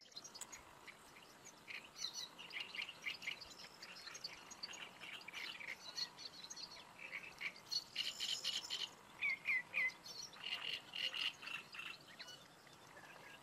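Small birds chirping and singing: many short, high notes from several birds, overlapping, including a quick run of three notes about nine and a half seconds in.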